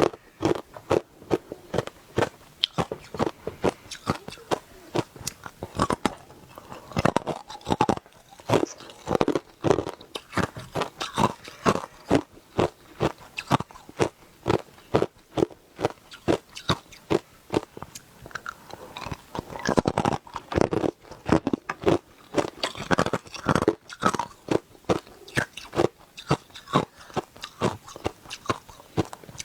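A person biting and chewing hard ice close to the microphone: a steady run of sharp, crisp crunches, two or three a second.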